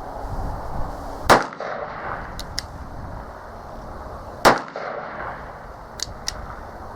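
Uberti 1875 Schofield single-action revolver firing two .45 Long Colt rounds about three seconds apart, each a sharp crack with a short echoing tail. A few much fainter light clicks follow each shot.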